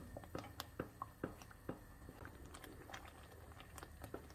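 Wooden spoon stirring a thick cornstarch-and-sugar-syrup Turkish delight mixture in a pot, giving faint, irregular wet clicks and squelches a few times a second. The mixture is being cooked down to drive off its water.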